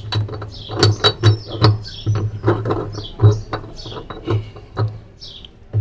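Box spanner working the nut on a washing machine's drum shaft: a string of metal clicks and knocks, about two a second. Short bird chirps can be heard behind.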